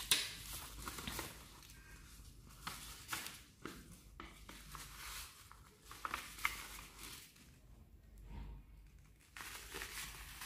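Cut paper scraps rustling and crinkling as a hand scoops them off a paper sheet and drops them into a paper-lined plastic bottle, loading a homemade percolator; irregular short rustles and clicks.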